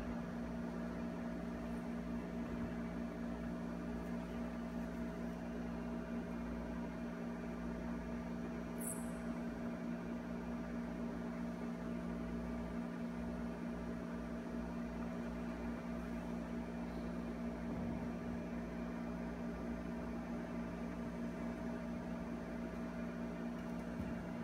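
Steady low hum over a faint hiss: the room tone of the hall. A brief high-pitched squeak comes about nine seconds in.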